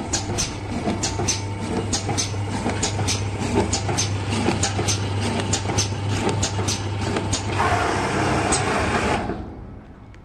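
Paper tube cutting machine running: a steady motor hum under a regular clicking, about two to three clicks a second. Near the end a louder rushing noise rises for about a second and a half, then the machine stops.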